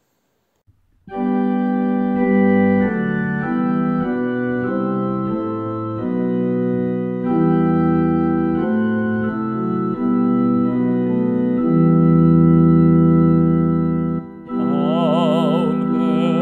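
Church organ playing a hymn tune in sustained chords that change every second or so. Singing of the hymn begins over the organ near the end.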